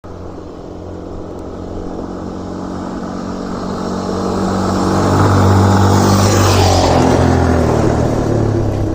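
Yamaha Ténéré 250 single-cylinder four-stroke motorcycle engine running, getting steadily louder over the first five or six seconds, with a rushing noise joining in around six seconds.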